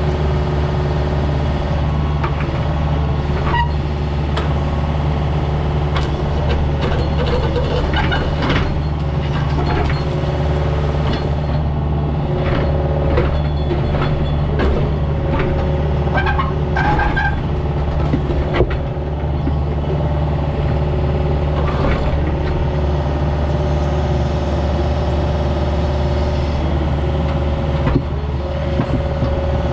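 Engine of a compact earthmoving machine running steadily at a constant speed, with scattered metal clanks and brief squeals from the machine at work, busiest through the middle.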